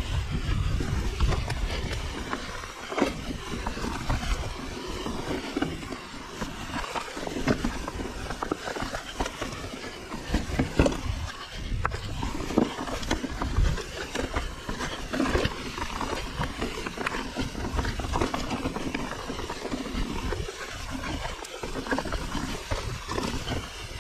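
Mountain bike rolling down a rocky, boulder-strewn trail: tyres crunching over loose stones, with frequent knocks and rattles from the bike and a steady low rumble underneath.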